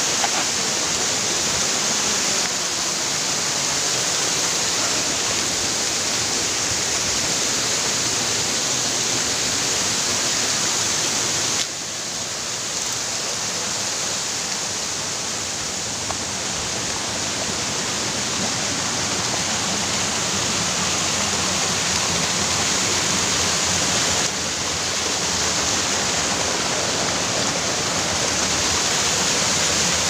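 Waterfall rushing steadily, loud and close, with the sound stepping abruptly in level and tone a few times.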